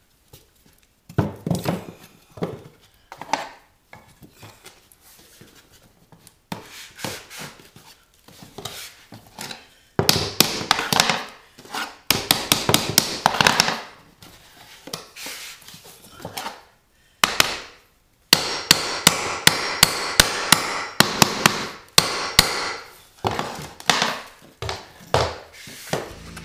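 Hammer blows on laminate flooring and timber while a plank is knocked tight against the wall: scattered knocks at first, then runs of quick sharp taps, and in the second half a steady series of strikes, about two or three a second.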